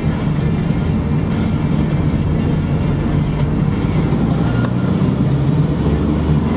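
Mercedes Sprinter van driving at road speed, heard from inside the cab: a steady engine drone with tyre and road noise.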